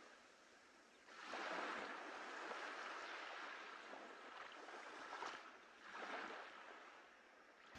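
Small waves washing onto a sandy beach: a soft rush of surf that swells about a second in and again around six seconds, then ebbs.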